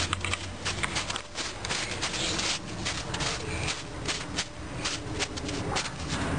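A toddler's footsteps crunching in snow, a run of irregular steps.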